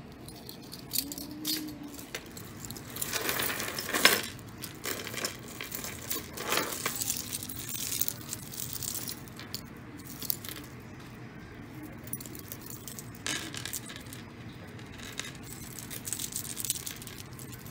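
Costume jewelry chains, beads and bangles jangling and clinking together as pieces are handled and pulled apart, with a louder clatter about four seconds in.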